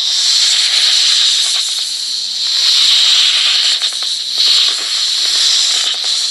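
Hissing animal sound effect: a long, steady hiss, strongest in the upper range, with faint crackling running through it and small dips in level.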